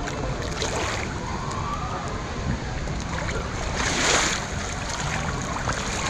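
Water sloshing and splashing around a camera floating just above the surface of a lazy river, with a louder splash about four seconds in.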